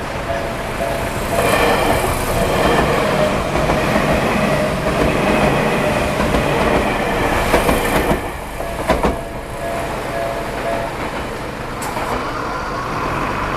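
A Tokyu Oimachi Line train passing over a level crossing, its wheels clacking over the rail joints, while the crossing's warning bell rings in a steady repeating pattern. The bell is drowned out while the train goes by, is heard again as it clears, then falls silent.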